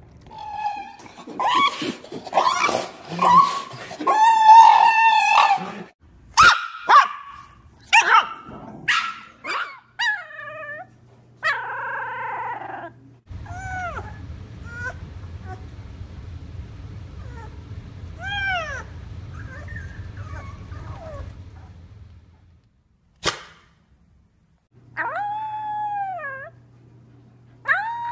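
A string of Shiba Inu dog and puppy vocalizations from several clips. It begins with loud calls, then short sharp calls, then a puppy moaning while pooping. Near the end a puppy cries in calls that rise and then fall in pitch.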